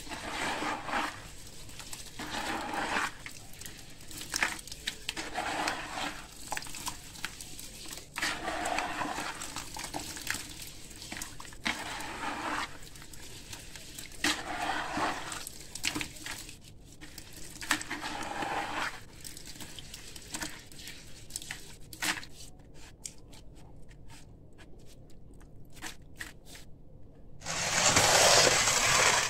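Hands squeezing and crumbling wet concrete in a bucket of water, sloshing and squelching in uneven strokes every second or two, then only scattered small clicks and drips. Near the end comes a louder rush of water as a hand lifts out of the bucket.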